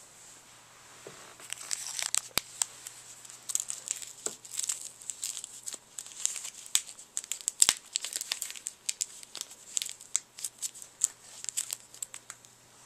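Gift wrapping paper crinkling and tearing in quick, irregular crackles as a cat rips open a wrapped present, beginning about a second and a half in.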